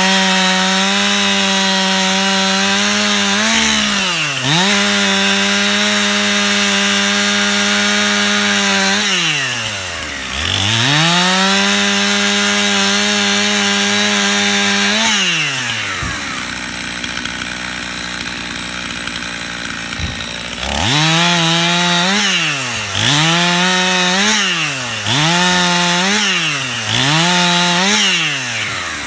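Stihl two-stroke chainsaw held at full throttle, cutting through limb wood, its pitch dipping as the chain bites. It drops back to idle about halfway through. Near the end it is revved in four short bursts, one quick cut after another.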